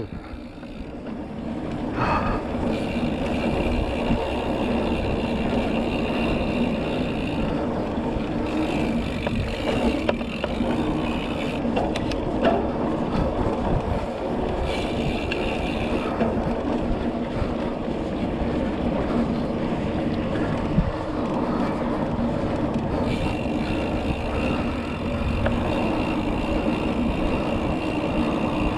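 Mountain bike on the move, heard from a bike-mounted or helmet camera: steady wind rush on the microphone and tyre noise on the trail, with a higher buzz that comes and goes several times.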